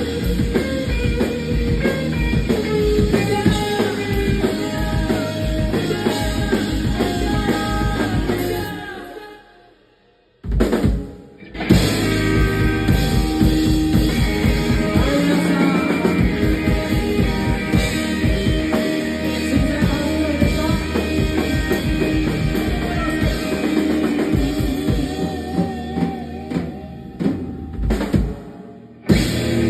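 Live band playing a rock song with drum kit and singing. About nine seconds in the music dies away to almost nothing, there is a single hit, and the full band comes back in about two seconds later. There is another short stop near the end.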